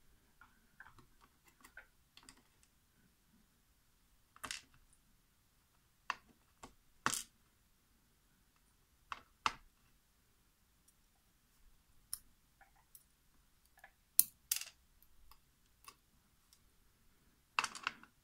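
Small, sharp, irregular clicks and taps of steel tweezers on a brass lock plug and its pins as the pins are pulled out one at a time and set down on a plastic pin tray; about ten clicks, the loudest a little past the middle.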